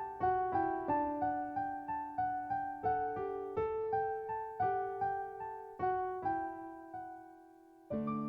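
Piano music: a slow melody of single struck notes, about two to three a second, each ringing and fading. Near the end a note is left to die away before a new chord is struck.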